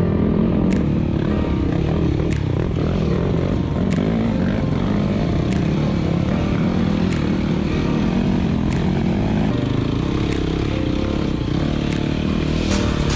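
Dirt bike engines running steadily at low trail speed: the near one is the Yamaha WR250F's 250cc four-stroke single, with other bikes ahead on the trail.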